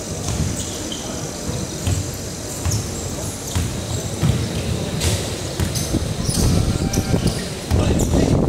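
Basketball game sounds in a large hall: the ball bouncing on the hardwood court, amid voices of players and spectators.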